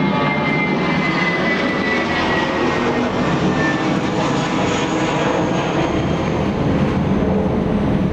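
Steady loud mechanical drone, like an engine running, with a faint high whine that slowly falls in pitch.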